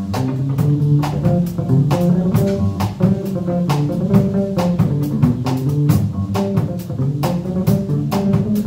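Live band playing an instrumental passage: electric and acoustic guitars over a drum kit keeping a steady beat.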